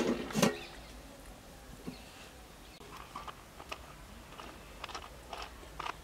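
Hands pressing and smoothing soft, sticky wheat dough around a cooking pot's rim to seal the lid, making small scattered squelches and clicks. A crow caws loudly right at the start.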